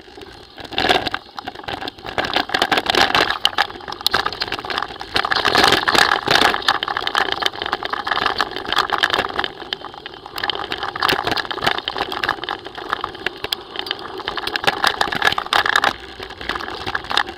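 Mountain bike rolling fast over a loose-stone gravel track: tyres crunching on stones and the bike and camera mount rattling, a dense unbroken clatter that swells and eases with the bumps.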